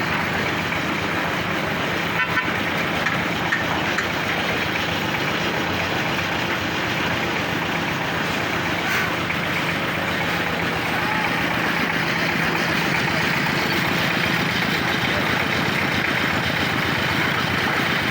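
Engine of a self-loading concrete mixer and pump running steadily under load while it mixes and pumps concrete.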